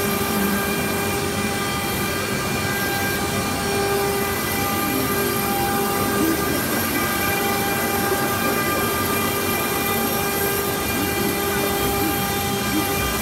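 Stone-carving CNC router spindle running at a steady speed, its bit cutting a relief into sandstone: a steady whine of several tones over an even gritty hiss.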